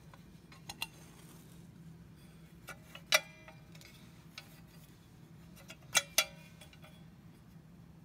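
Scattered metal clicks and clinks from handling an opened Fire-Lite BG-6 pull station's steel housing and its spring-loaded latch mechanism. There are a few separate clicks, one with a brief metallic ring, and the loudest two come close together about six seconds in.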